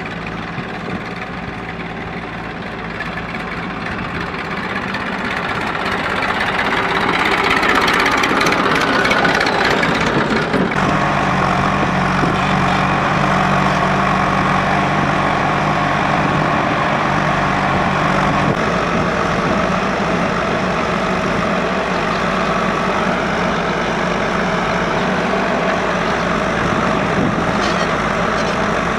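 Diesel engines running: a Massey Ferguson tractor pulling a loaded trolley grows louder over the first several seconds. About eleven seconds in, the sound changes abruptly to a JCB 3DX backhoe loader's engine working under load as it digs, with a strong low hum that eases after several seconds.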